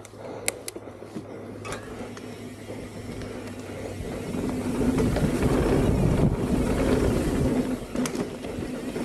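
Mountain bike riding down a dirt trail: tyre rumble and wind noise on the microphone build up from about four seconds in as the bike picks up speed. A few sharp clicks and knocks from the bike come earlier, in the first two seconds.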